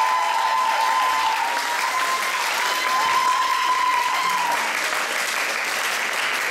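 Audience applauding. Over it a high, steady whistle-like tone sounds and stops about four and a half seconds in.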